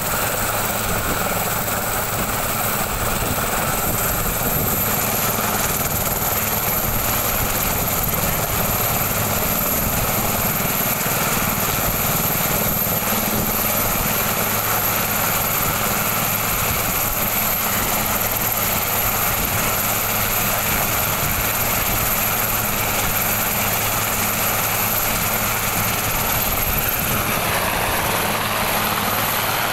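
Sikorsky S-76 helicopter running on the ground with its main rotor turning, the turbine engines giving a steady high whine over the rotor's hum.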